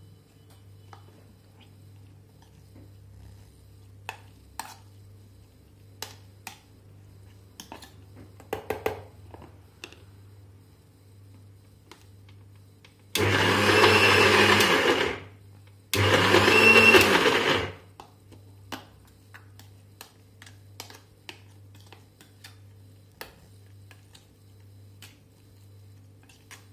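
Kenstar Pulsar mixer grinder grinding soaked tur dal with spices into a coarse paste. It runs in two short pulses of about two seconds each, a second apart, each one rising in pitch as the motor spins up and falling as it slows. Scattered light clicks and taps come before and after the pulses.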